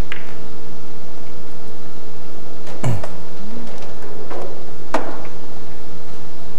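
Pool shot: the cue tip strikes the cue ball right at the start, then a few sharp knocks of billiard balls against balls, cushions and a pocket as an object ball is potted and the cue ball rolls on, the loudest about three seconds in. A faint steady hum underneath.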